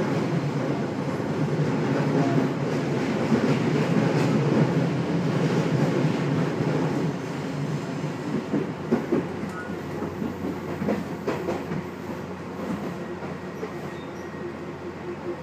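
Commuter train heard from inside the passenger car: wheels running on the rails. The rumble is loud for the first half, then eases off as the train slows, with a few clacks of the wheels over rail joints partway through.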